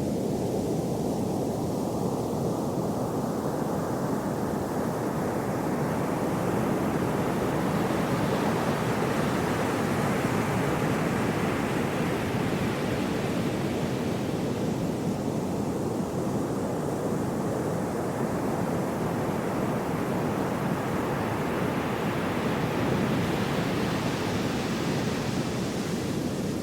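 Gentle ocean waves: a steady deep rushing wash that slowly swells brighter and fades back, once in the first half and again near the end.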